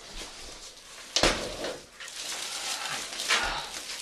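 Packaging being handled as a computer case is pulled from its box: polystyrene, plastic and cardboard rustling and scraping, with a sharp knock about a second in and a smaller one near the end.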